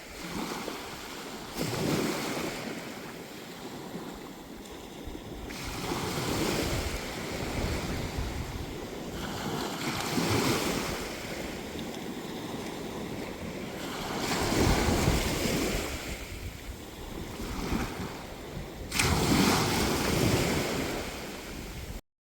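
Sea waves breaking and washing up the beach, the surf swelling and falling every few seconds, with wind buffeting the microphone. The sound cuts off abruptly near the end.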